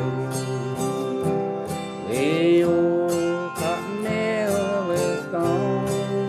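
Country-style folk song: an acoustic guitar strums steadily, and a held melody line with a slight waver comes in over it about two seconds in, then again near four seconds.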